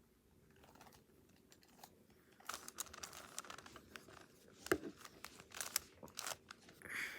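Layers of a plastic Rubik's cube being turned by hand: a faint, irregular run of quick clicks and rattles that starts about two and a half seconds in.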